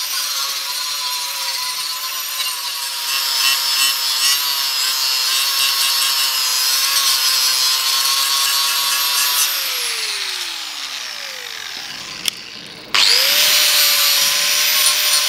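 Electric angle grinder grinding down a fresh weld on a steel bricklayer's trowel blade, running at a steady high whine. About nine and a half seconds in it is switched off and winds down with a falling pitch, then it starts again near the end and runs up quickly to full speed.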